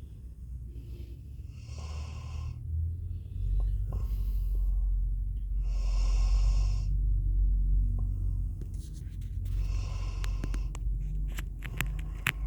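Sleeping Labrador retriever snoring, a noisy breath about every four seconds over a low rumble. A few sharp clicks come near the end.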